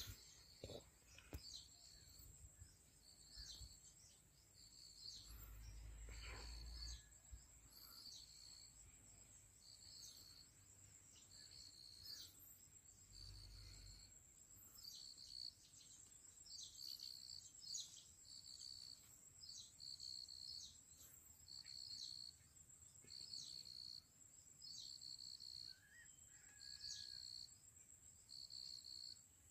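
Faint insect chirping in the open air: a short high chirp repeating about once a second over a steady thin high-pitched trill. Twice a brief low rumble comes through underneath.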